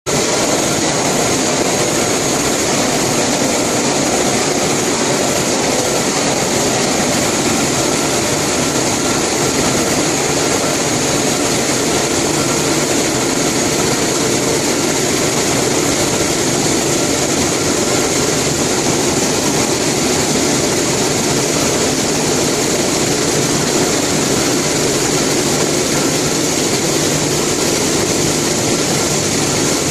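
Buckwheat hulling and separating machinery running steadily: a dense, unbroken mechanical noise with a thin high whine on top.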